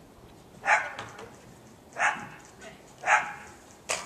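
A dog barks three times, single sharp barks about a second apart, followed by a short sharp click near the end.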